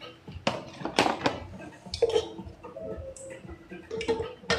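A handful of separate sharp clinks and knocks of cooking utensils against pots and pans.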